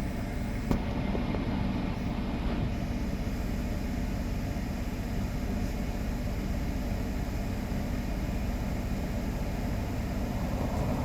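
Steady low rumble inside a car, with a single short click just under a second in.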